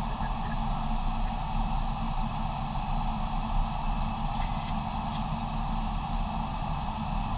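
Steady in-flight airliner flight-deck noise: rushing airflow over the windscreen with a low rumble underneath, heard from inside the cockpit.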